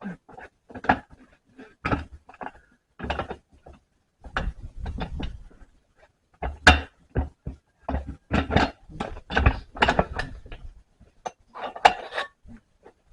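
Irregular knocks, clunks and scrapes from hand tools and hands working a UTV tire on its rim, some knocks sharp and loud, with a longer scraping stretch about four seconds in.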